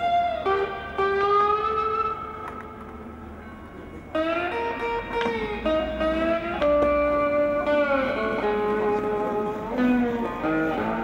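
Guitar-led background music with sliding, bending notes. It drops quieter about two seconds in and comes back louder about four seconds in.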